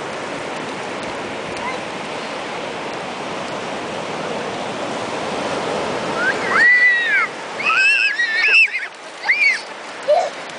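Steady rush of ocean surf breaking on a sandy beach. About two-thirds of the way through the surf noise drops off suddenly and young girls let out several short, high-pitched squeals as they run back from a wave.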